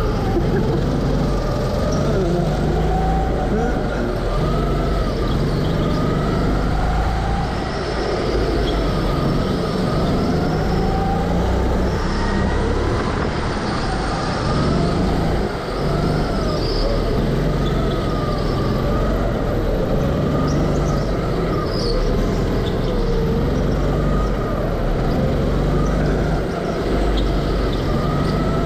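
Go-kart running at speed, its pitch rising and falling again and again as it speeds up on the straights and slows for the corners.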